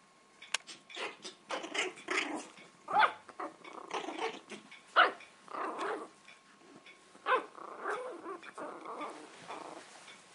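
Puppies growling in play: a run of short, rough growls, one after another, about a second apart.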